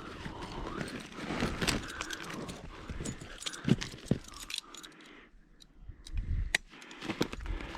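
Footsteps and handling noise with clicks and rattling of plastic maple tap drops and spiles. It is busy for the first few seconds and then thins to a few scattered clicks.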